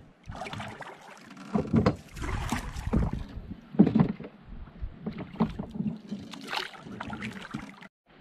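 Small rowing dinghy being rowed through shallow water: oars splashing, with irregular wooden-sounding knocks of the oars in their oarlocks and against the hull.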